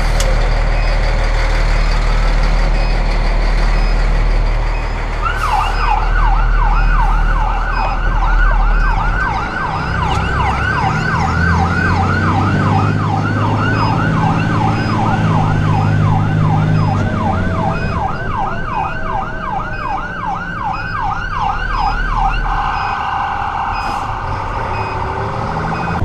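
Fire truck siren on a fast yelp, heard from inside the cab: a rapid, evenly repeating up-and-down sweep, about three a second, that starts about five seconds in and loses its clear sweep near the end. The truck's engine runs underneath.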